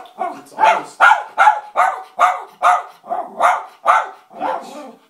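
A dog shut in a wire crate barking loudly and non-stop, about two to three sharp barks a second. It is the distressed barking of a dog left home alone with strangers.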